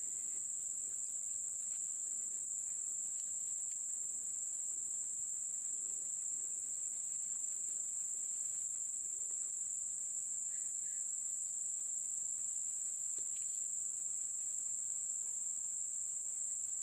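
Steady, high-pitched drone of a chorus of insects.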